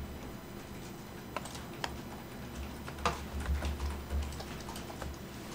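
A handful of scattered computer keyboard and mouse clicks, the sharpest about three seconds in, over a low hum.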